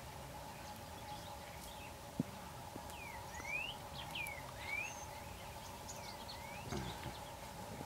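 A bird calling three times, each call a whistled note that slides down and then up, over a steady background drone. A single sharp click sounds about two seconds in.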